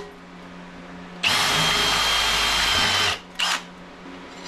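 Cordless drill boring a hole through a metal mounting plate clamped in a vise. It runs at a steady high whine for about two seconds, starting a little over a second in, then gives one short burst just after it stops.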